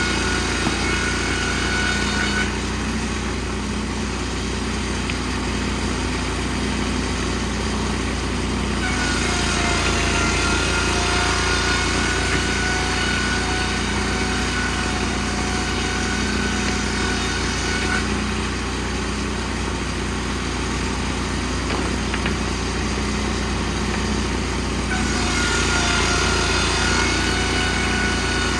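Wood-Mizer portable band sawmill running steadily while sawing boards from a log, with a high whine that comes in and drops out every several seconds.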